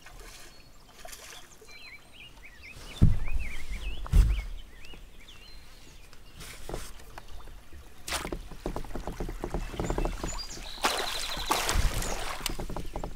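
A hooked walleye splashing and thrashing beside a kayak and in the landing net as it is landed, with two heavy thumps against the kayak about three and four seconds in and a run of splashing and rattling in the last few seconds.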